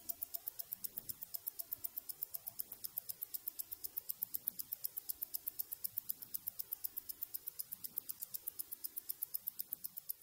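Mechanical watch ticking: fast, even ticks at about eight a second, the beat of a 28,800-beats-per-hour movement.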